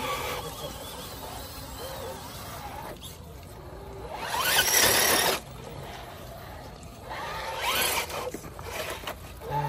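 A 1/10-scale RC rock crawler's brushless motor and gearbox whining under throttle as it climbs. A loud burst of rising whine comes about four seconds in and a shorter one near eight seconds.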